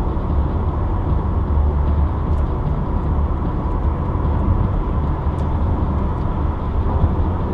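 Steady road noise of a car driving along a highway: a constant low rumble of tyres and engine.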